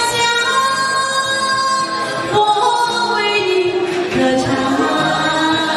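Singing voices holding long notes, several pitches at once, shifting to new notes every second or two.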